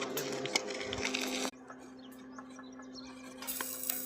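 Electric arc welding on steel: a crackling, hissing arc over a steady electrical hum. It stops about a second and a half in and starts again near the end.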